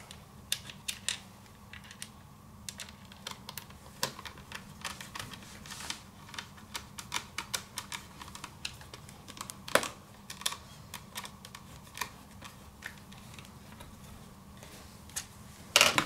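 Irregular small clicks and taps of a screwdriver and fingers working on the plastic underside of an opened Lenovo Z50 laptop, with a louder click about ten seconds in and another near the end.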